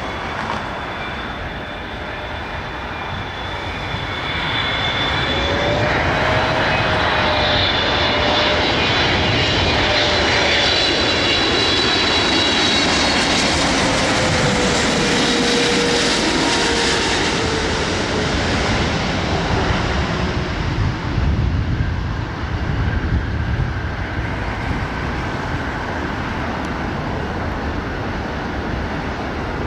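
Boeing 777-300ER's GE90-115B turbofan engines on a landing pass: a rumble with whining engine tones that swells about five seconds in. The tones then slide down in pitch as the jet goes by, and the sound eases a little in the last third.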